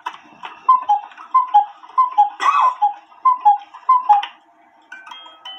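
A cuckoo clock cuckooing, about six two-note calls, high then low, with mechanical clicks among them, heard through a laptop's speakers from a playing video. Near the end the clock's music box begins to play.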